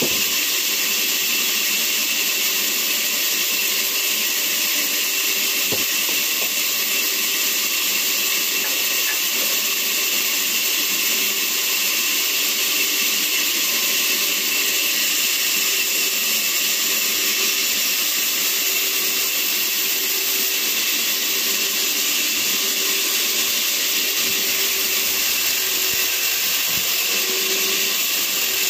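Vertical log band saw running and ripping a log lengthwise: a steady high hiss and whine of the blade cutting through the wood, with a faint low pulse about once a second.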